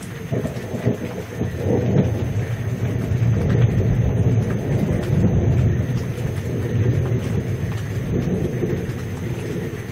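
Thunder rumbling from a severe thunderstorm: a long, low roll that builds over the first few seconds and slowly fades.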